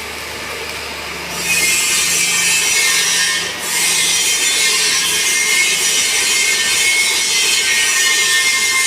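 Electric welding arc crackling and hissing, dropping away for about the first second and again briefly about three and a half seconds in.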